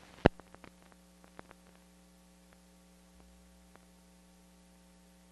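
A sharp click about a third of a second in, then a few faint crackles over a steady low electrical hum.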